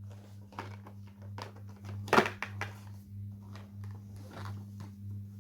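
Handling of VHS covers: a run of light clicks and taps, with one louder knock about two seconds in, over a steady low electrical hum.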